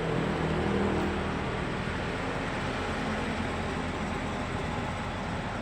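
Steady low hum inside the cabin of a parked intercity bus, from its engine idling and its air conditioning running.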